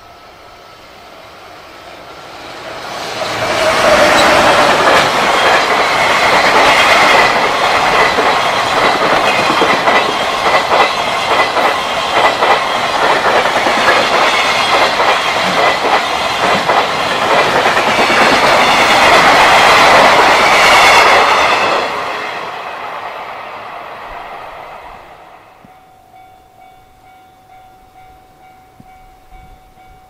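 Freight container train passing at speed: wheels clattering over the rail joints, building up over a couple of seconds, loud for about eighteen seconds, then fading away. The level-crossing warning bell rings steadily, heard plainly once the train has gone.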